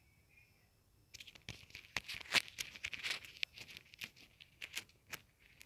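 Rustling, crackling handling noise close to the microphone: a quick run of small crackles and rubs starting about a second in, the loudest just past the middle.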